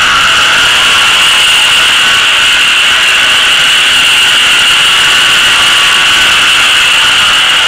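A loud, steady mechanical whir at one unchanging pitch, with a high hiss over it.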